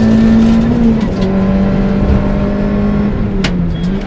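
VW Polo 1.4 rally car engine heard from inside the cabin, pulling at high, fairly steady revs. The revs dip slightly about a second in, then dip again and pick back up near the end. A few sharp clicks come from the car about three and a half seconds in.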